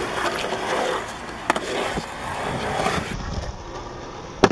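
Skateboard wheels rolling over a concrete skate park surface with a steady rumble. There is a sharp clack about a second and a half in, and a louder clack near the end as the board comes down from a jump.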